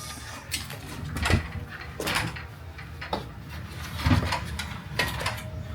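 A series of irregular knocks and clatters of hard objects being handled, about six over a few seconds, loudest about a second in and again about four seconds in.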